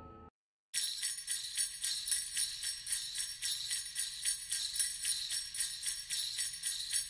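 Sleigh bells shaken in a steady rhythm of several shakes a second, opening a Christmas music track. They start after a short silence, about three-quarters of a second in, as the last note of the previous tune dies away.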